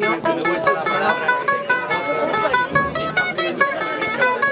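Music played on plucked string instruments: a quick, steady run of picked notes.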